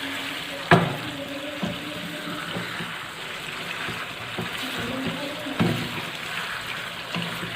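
Chicken frying in oil in an open pan with a steady sizzle while a spoon stirs it. Sharp knocks of the spoon against the pan come about a second in, again shortly after, and near six seconds.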